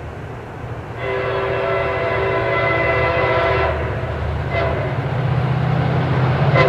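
A MARC commuter train's diesel locomotive approaching, its air horn sounding a chord of several notes: a long blast, a brief toot, then another blast beginning near the end, over the low rumble of the engine. The pattern is a grade-crossing warning.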